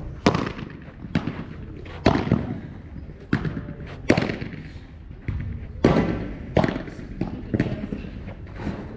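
Padel rally: the ball struck back and forth with solid padel rackets, a sharp pop about every second, with fainter knocks of the ball bouncing in between.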